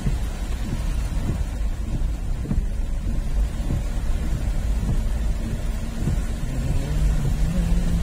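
Rain falling, with heavy, steady wind rumble buffeting the microphone as the camera travels along a muddy track. A low engine hum steps up in pitch during the last second or two.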